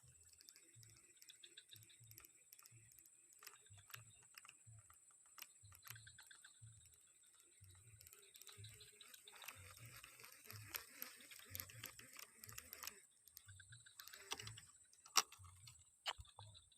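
Faint handling noise: soft low thumps repeating about twice a second, with scattered clicks and a stretch of rustling in the middle, over a steady high-pitched hum.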